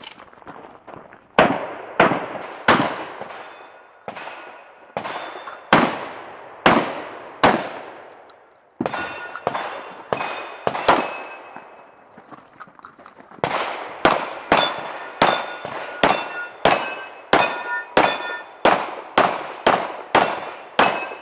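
Rapid gunfire on a 3-gun match stage, each shot followed by the ring of struck steel targets. The shots are spaced unevenly through the first half, then come about two a second, more than a dozen in a row, through the last eight seconds.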